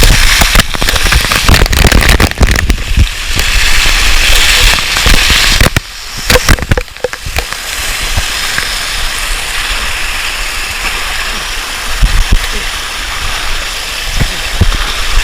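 Waterfall spray and falling water pelting a GoPro's waterproof housing, heard as a loud crackling hiss with irregular knocks. It eases into a steadier rush after about seven seconds.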